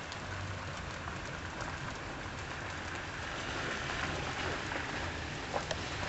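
Steady outdoor rushing noise with a faint low hum underneath, and two sharp clicks about five and a half seconds in.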